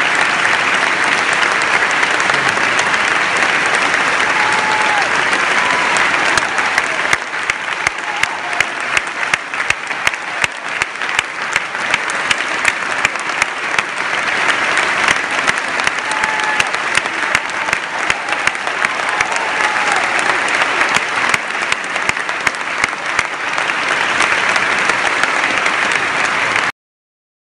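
Concert audience applauding in a large hall, a dense, steady clapping. From about seven seconds in, single sharp claps from someone right by the microphone stand out above the rest.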